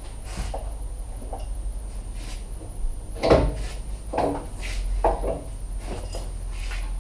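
Knocks and clunks from hand work on parts and tools in a car's engine bay, over a steady low hum. Three louder knocks come about a second apart around the middle, the first the loudest.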